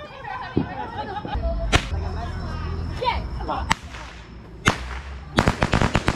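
Fireworks going off: single sharp bangs a second or two apart, then a rapid string of cracks near the end, like a firecracker string.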